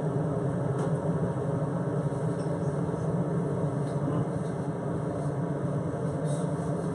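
Steady low rushing roar of a gas range burner turned up to a high flame.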